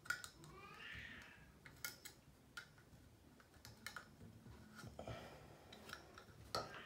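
Faint, scattered clicks and taps of metal tweezers against a small clear vial as tissue packing is worked out of it.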